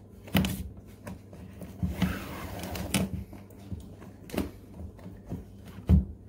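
A shoelace being pulled out through the eyelets of a leather Nike Air Force 1 sneaker, with a rustle of the lace and several sharp knocks as the shoe is handled and bumped against the table, the last knock the loudest. A faint steady low hum runs underneath.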